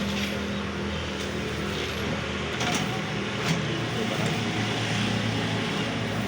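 Steady machine hum with a low drone and a few faint clicks.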